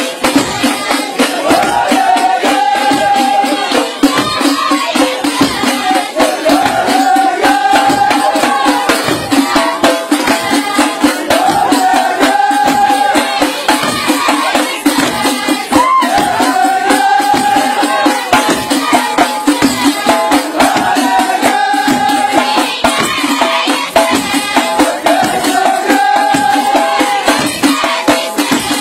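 Ahwash music: frame drums beaten in a fast, dense rhythm under a chorus of men singing a short phrase that comes round about every two seconds.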